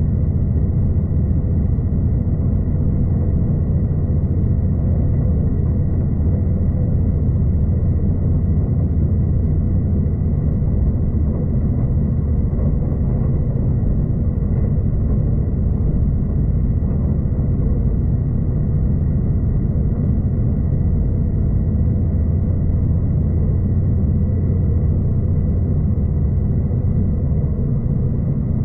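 Steady low rumble of a V/Line passenger train running along the track, heard from inside the carriage, with a faint steady high whine.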